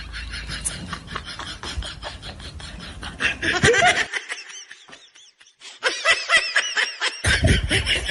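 Laughter in quick repeated bursts, loudest a little past halfway and again near the end.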